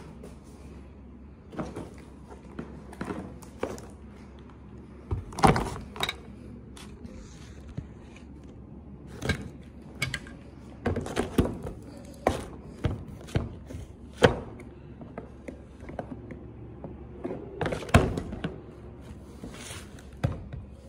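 Cardboard boxes being handled and set down on a table: irregular thunks and knocks, with short scraping and rustling of cardboard between them.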